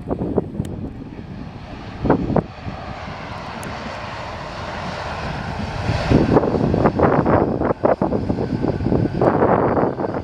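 Air Canada Boeing 787-9 Dreamliner jet arriving to land: a steady jet rush that swells to its loudest about halfway through. Wind buffets the microphone in gusts.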